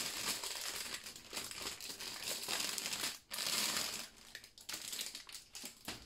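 Clear plastic bag packed with small bags of diamond painting drills being handled and crinkled: uneven crackling, louder in the first half, with a brief break about three seconds in.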